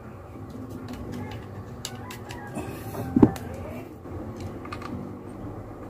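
Small plastic clicks and handling noise from a white plastic Wi-Fi security camera and its parts being handled, with one louder knock about three seconds in.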